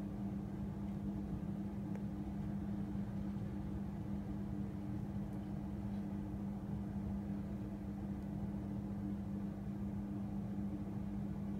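Steady low mechanical hum holding one constant pitch, like a running appliance or motor.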